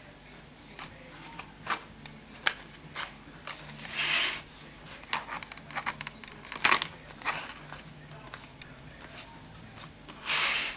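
Paper being handled on a spiral notepad: crinkling and rustling with scattered sharp taps and clicks, and two short swishes of paper, about four seconds in and near the end.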